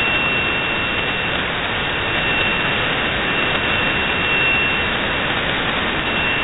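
Static and hiss from a shortwave single-sideband receiver tuned to the 20-metre band, with nobody transmitting. A thin, steady high whistle from a carrier runs through it and weakens for a moment about five seconds in.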